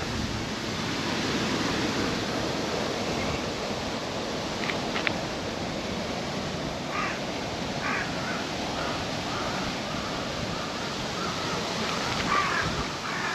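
Steady outdoor rushing noise, with wind on the microphone. In the second half, short calls sound faintly: two, then a run of quick repeated notes.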